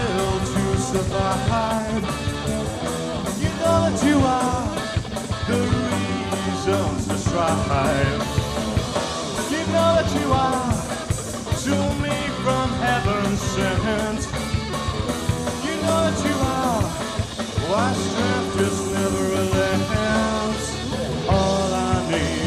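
Rock band playing live, with a singing voice over guitar and a steady beat.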